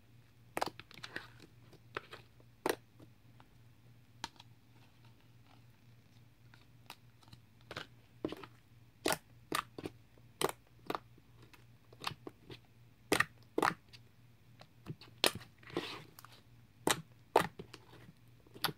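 Sticky white slime being poked, pressed and folded by hand, giving off irregular sharp pops and clicks as it sticks and pulls away from the fingers.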